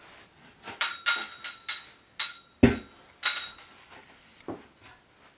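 Metal tripod stand parts clinking and knocking together as they are handled and fitted, several strikes leaving a short ringing tone, with one heavier thump about two and a half seconds in.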